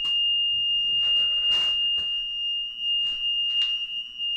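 Building alarm sounding one continuous, steady high-pitched tone. A couple of faint knocks or scuffs come through underneath it.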